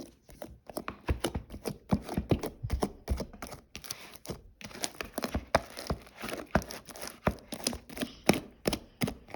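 Fluffy shaving-foam slime being squeezed and pulled by hand, giving off irregular sticky clicks and crackles several times a second.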